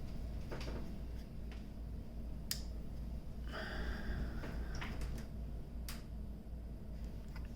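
Desktop computer booting, its fans running with a steady low hum. A few sharp clicks sound, and a brief higher noise comes about three and a half seconds in.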